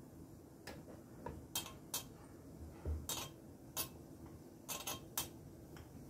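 Wooden rolling pin rolling out a thin momo dough wrapper on a wooden board, giving faint, irregular clicks and knocks.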